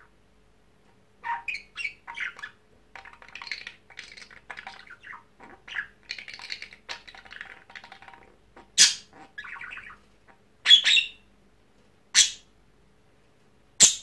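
Budgerigar warbling and chattering, mixing in mimicked Indian ringneck parakeet calls and its imitation of a ball being thrown. In the second half come four loud, short, sharp calls.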